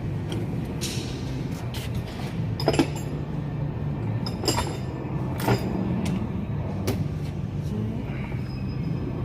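Nissan Navara D40's drivetrain running with a steady low hum, the humming noise under diagnosis, which the mechanic points to the differential. Four sharp clicks or knocks sound over it, from about three to seven seconds in.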